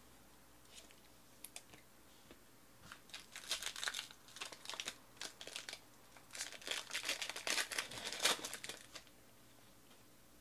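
Foil trading-card pack wrapper being torn open and crinkled by hand: a few sharp crackles about a second in, then a dense run of irregular crinkling that stops about nine seconds in.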